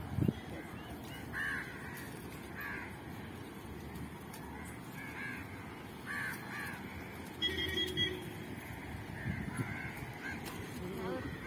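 Birds calling in short, scattered calls over a low outdoor background, with one brief steady honk about seven and a half seconds in.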